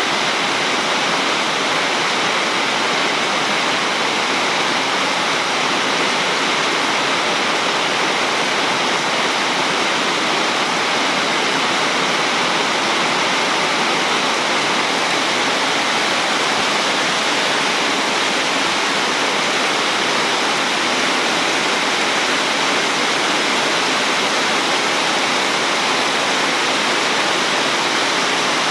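Heavy rain pouring steadily in an even, unbroken hiss.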